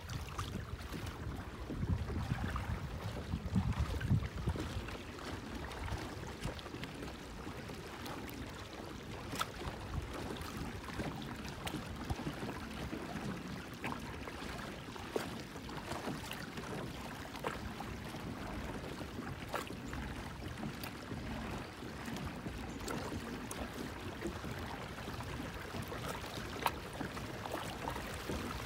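Lake water lapping and trickling against the hull of a moving pedal kayak, with scattered small ticks and splashes. A low rumble stands out in the first few seconds.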